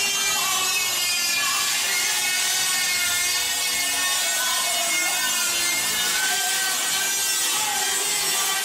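Dremel rotary tool cutting into a computer case panel: a steady, loud high whine whose pitch wavers up and down as the cutting load changes, over a gritty grinding hiss.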